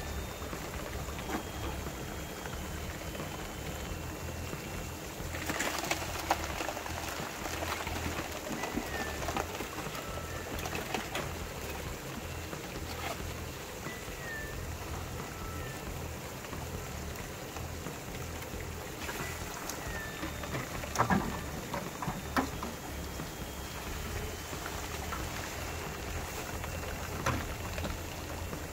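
Water running steadily through a switched-on gold-recovery rig, with scattered small clicks. A bird's short falling chirp repeats every five or six seconds.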